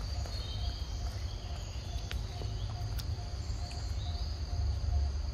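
Forest ambience: insects droning steadily, with a faint note repeating about three times a second and a few bird chirps. A low rumble sits underneath, and there are a couple of short clicks.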